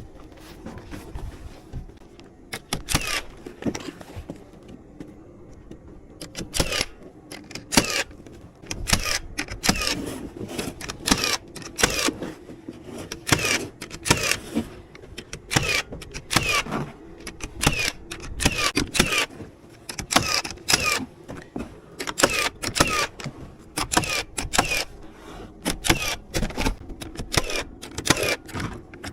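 Nails being driven into framing lumber: repeated sharp strikes in quick runs, some with a brief ring, over a steady low hum.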